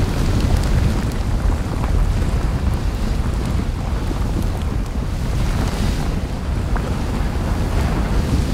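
Steady low rumbling roar with a few faint crackles: a sound effect laid on in post-production, not the lava flow's real sound.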